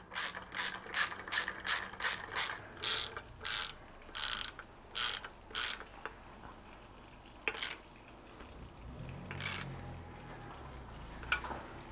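Ratchet wrench clicking in quick back-and-forth strokes as it runs down the top nut on a car's rear strut, about three strokes a second at first, then slower and longer. The strokes stop about halfway through, with two single strokes after.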